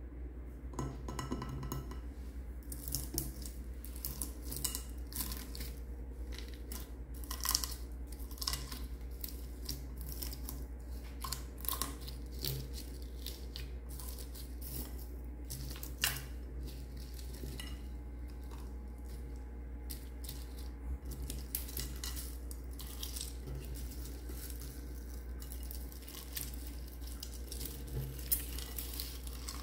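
Fingers pressing, poking and then mixing clear slime packed with sequins, beads and foam balls in a clear dish: a steady run of small crackles and clicks, with a few sharper clicks against the dish, over a steady low hum.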